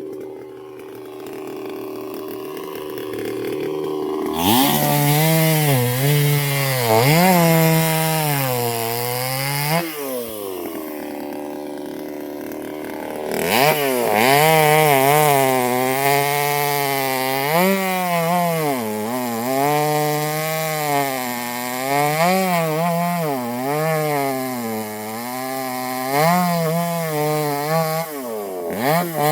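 Chainsaw running steadily, then cutting into wood about four seconds in, its engine speed wavering up and down under load. Around ten seconds in it eases back to a steady note for a few seconds, then cuts again for most of the rest.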